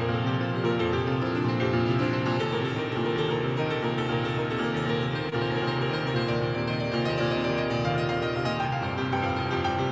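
Instrumental keyboard music, many notes sounding together without a break.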